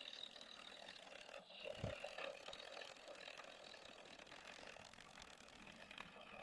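Near silence: faint background hiss with one soft thump about two seconds in.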